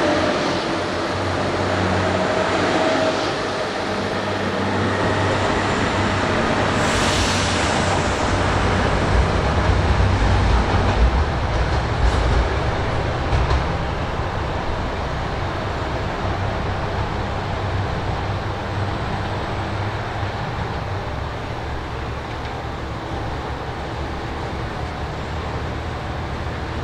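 Diesel limited express train's engines running and its wheels rolling on the rails in a steady rumble, heavier with some clatter in the middle. There is a brief hiss about seven seconds in.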